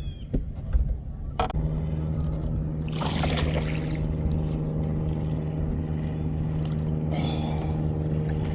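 A steady motor hum on the boat starts suddenly about a second and a half in and runs on evenly. It is joined by a rush of water for about a second around three seconds in, and by a shorter one near the end.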